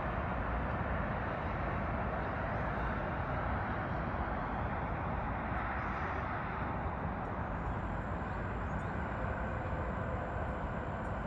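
Steady hum of distant city traffic, an even wash of noise with no single event standing out; a faint high whine joins about seven seconds in.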